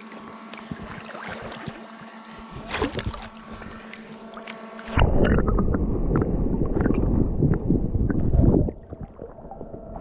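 River water heard underwater: a muffled hum with a few clicks, then a sudden loud, low rushing of the current about halfway through that drops back down near the end.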